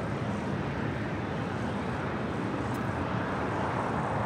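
Steady airport background rumble of distant jet aircraft and ground vehicles, with no distinct event, growing a little louder near the end.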